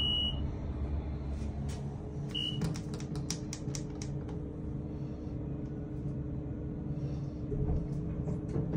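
Elevator car button panel: a short high electronic beep, another about two and a half seconds in, then a quick run of about eight sharp clicks as a floor button is pressed over and over, over a steady low hum.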